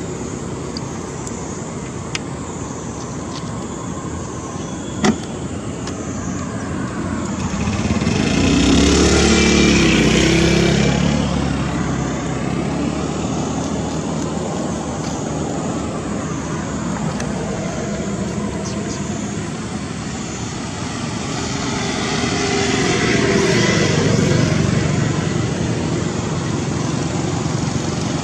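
Motor vehicles passing, with engine and road noise swelling up and fading away twice, the louder pass about eight to eleven seconds in and another about twenty-two seconds in, over a steady background of traffic noise. A single sharp click about five seconds in.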